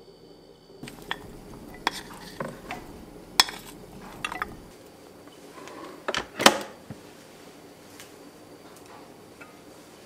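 Utensil clinks and knocks against a rice cooker's inner pot as stir-fried ingredients are tipped in, then the Toshiba rice cooker's lid is shut with a loud click about six seconds in.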